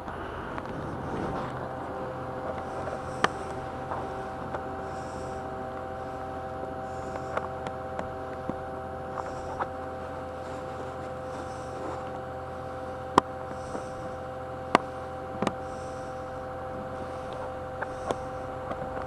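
A steady electrical hum made of several even tones, with a few sharp clicks scattered through it.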